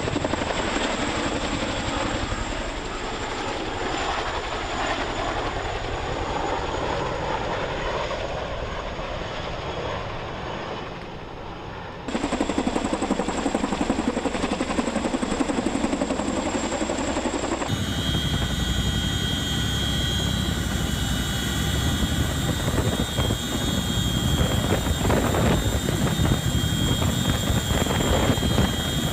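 Boeing CH-47 Chinook tandem-rotor helicopter running in flight, with a steady beat of rotor and engine noise. The sound gets louder in steps about 12 and 18 seconds in. A steady high whine rides over the rotor noise in the later part.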